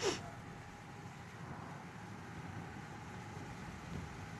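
Steady low rumble inside a car's cabin, with a brief breathy hiss right at the start.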